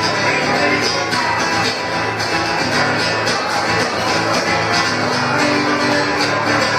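Country band music with acoustic guitar to the fore: the instrumental opening of a song, before the singing comes in.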